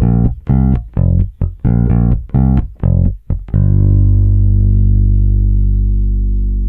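Solo electric bass line played back through a downward compressor at about 4:1 with a fast attack and makeup gain: a run of plucked notes at nearly even loudness, ghost notes included, with their attacks flattened. About three and a half seconds in, it lands on one long low note that rings on and slowly fades.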